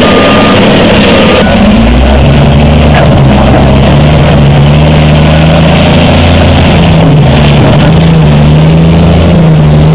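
Heavy diesel engine of a wheel loader running under load, its low hum rising and falling in pitch as it works. In the first second and a half a steady high beep sounds twice.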